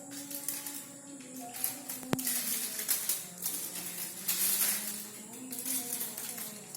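Background music with sustained notes over a crackling rustle from a food wrapper being opened, with one sharp click about two seconds in.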